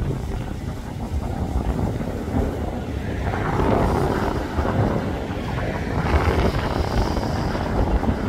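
Strong gusty wind buffeting the phone's microphone: a low rumbling roar of wind noise that swells louder about three seconds in.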